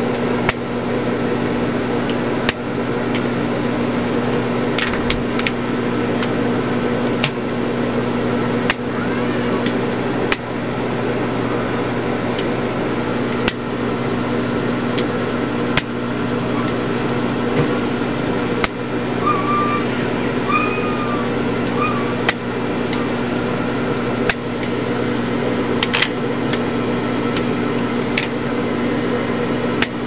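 Steady electric hum of an industrial sewing machine's motor left running idle, with scattered sharp clicks and knocks from handling at the machine.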